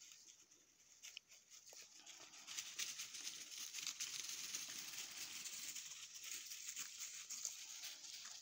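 Footsteps rustling and crackling through dry fallen leaves, growing louder about two and a half seconds in.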